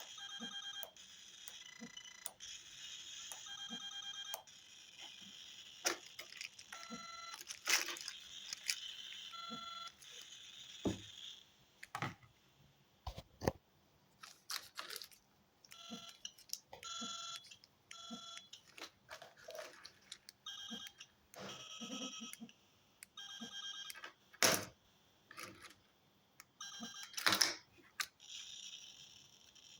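Flipper Zero's small built-in speaker sounding out Sub-GHz radio reception: a hiss that comes and goes, broken by short, high electronic beeps and sharp clicks, with a quieter stretch in the middle.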